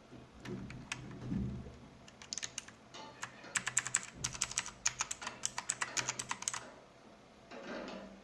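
Typing on an AULA F2012 mechanical keyboard: a few scattered key clicks, then a fast, continuous run of key strokes from about two seconds in that stops after about four and a half seconds.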